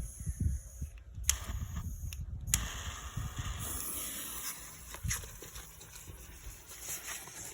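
A lighter clicked a few times, then a smoke bomb catching and hissing, over low wind rumble on the microphone.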